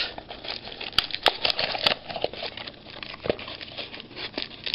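Plastic wrapping and a cardboard trading-card pack being handled: irregular crinkling and rustling with scattered sharp clicks, most of them in the first two seconds.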